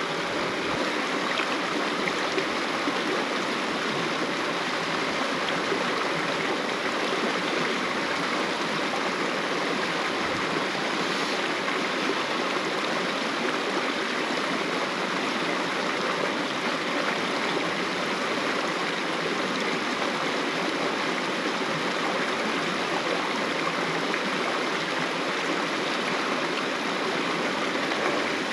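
Creek water running steadily over rocks, an even rushing wash with no breaks.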